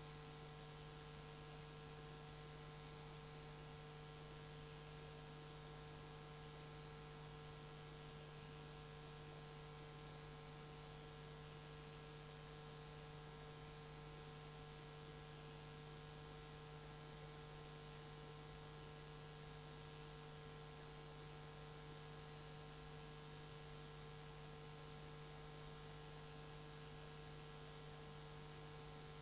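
Steady electrical hum with hiss, made of several fixed tones that do not change.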